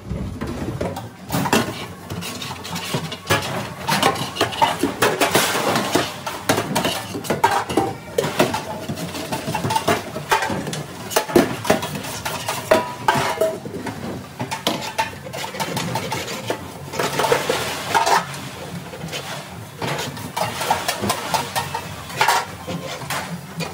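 Stainless steel trays and pans clattering and scraping against each other and the stainless steel sink as they are scrubbed by hand, a continuous run of irregular metal clanks.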